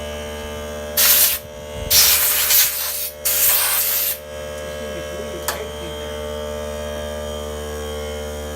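Compressed air blown into a chainsaw in three short hissing blasts, the last two about a second each, to clear out dirt and mud.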